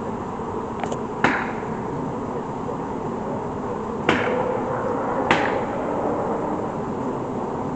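Three sharp knocks with short ringing tails, about a second in, about four seconds in and just over five seconds in, over a steady outdoor background rumble.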